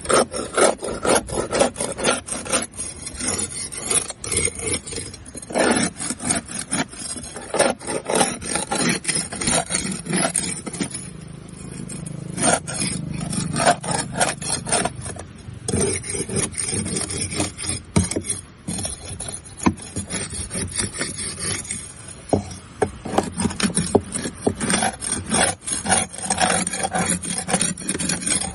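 Barnacles being scraped off a boat hull: quick, repeated rasping scrape strokes with crackling as the shells break away. A steady low hum shows through during a calmer stretch about halfway through.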